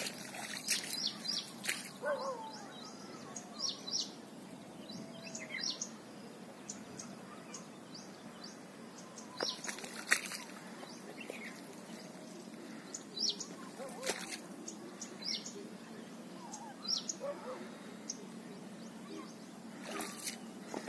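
Several birds chirping and calling, with short high chirps and a few lower curved calls scattered over a steady background hiss. A couple of louder sharp clicks come about halfway and two-thirds of the way through.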